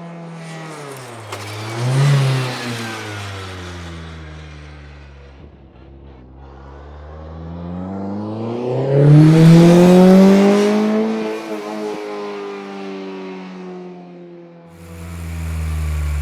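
BAC Mono's four-cylinder Cosworth engine: the revs fall away with a short blip about two seconds in, then climb hard to a loud peak about ten seconds in and ease off again. Near the end a lower, steady engine note begins.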